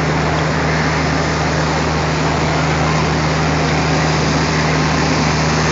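Diesel locomotive engine running steadily, a constant low drone with a noisy mechanical rumble over it.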